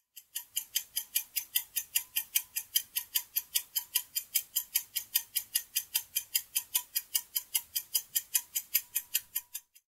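Clock-ticking sound effect of a quiz countdown timer: fast, even ticks at about five a second, stopping shortly before the end.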